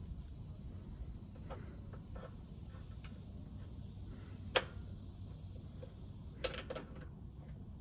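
Small metal clicks and taps as a grounding lug and its bolt are handled and fitted against a galvanized steel post, with one sharp click about halfway through and a few more near the end. Behind them runs a steady high-pitched insect drone.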